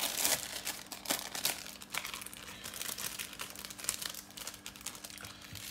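Clear plastic film wrapper crinkling as processed cheese slices are peeled out of it by hand, in a run of irregular crackles.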